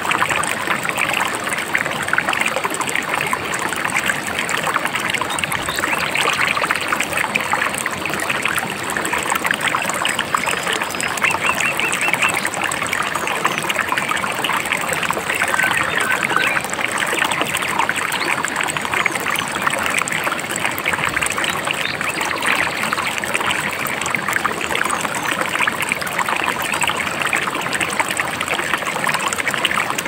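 Shallow river babbling and trickling steadily, a dense even splashing of running water.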